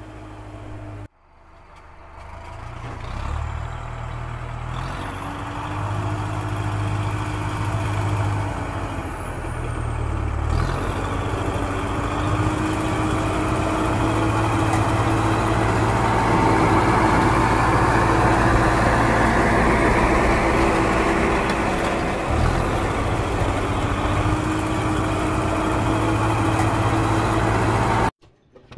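Heavy diesel engine sound effect, like a truck or excavator, idling and revving with its pitch rising and falling. It breaks off sharply about a second in, then builds louder, and cuts off suddenly near the end.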